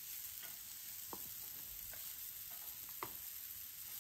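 Waffle batter sizzling softly on the hot waffle plates of a contact grill, with four faint taps and scrapes of a spoon as more batter is ladled from a plastic jug.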